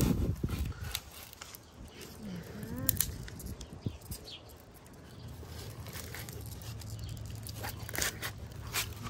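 Screen-spline roller pressing rubber spline and fiberglass mesh into a window-screen frame's channel: scattered crinkles and clicks, with a short rising squeak between two and three seconds in and a low hum from about five seconds on.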